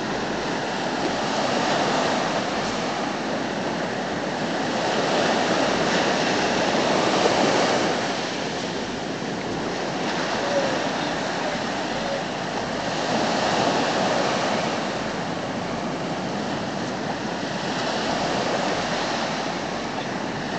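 Surf washing up a beach, a steady rush that swells and eases every few seconds as the waves come in and draw back.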